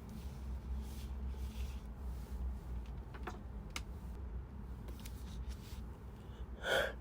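Quiet breathing through a congested head cold between sneezes, with a couple of faint clicks. Near the end, a sharp gasping breath in, the build-up to the next sneeze.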